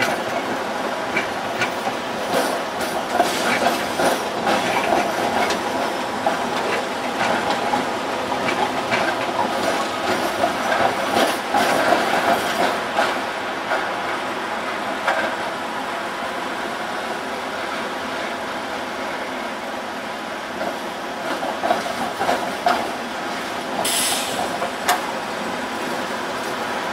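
Budapest Type UV trams running past on street track, steel wheels clacking irregularly over rail joints and switches, with the steady rumble of the moving cars.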